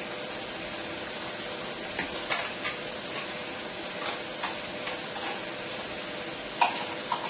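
Onions, leek and diced ham frying in a pan with a steady sizzle. Over it, a spoon scrapes and knocks against a sour cream cup in short clicks, the loudest near the end.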